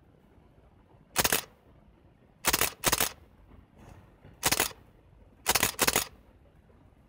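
Canon EOS 5 film SLR body releasing its shutter and mirror, a sharp mechanical clack each time. It fires as a single release, then a pair of clacks about a third of a second apart, then another single, then another pair.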